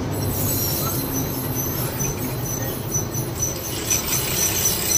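Steady engine and road rumble inside the cab of an Ashok Leyland goods truck on the move. A faint, quickly repeating high ticking comes in about halfway through.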